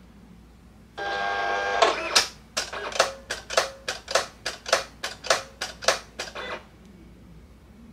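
A desktop paper-handling machine draws in a loaded sheet with a steady motor whir. It then works in quick, even strokes, about three a second, for some four seconds, and stops.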